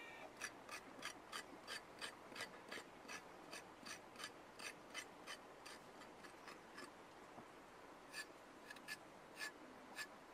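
Cleaver blade scraping along a hand-held raw carrot, short rasping strokes about three a second, becoming sparser in the second half.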